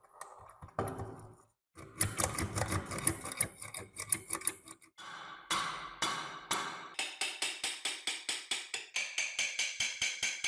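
Sharp clicks and taps, apparently of metal. They come unevenly at first, then settle about two-thirds of the way in into a rapid, even ticking of about five a second with a ringing tone.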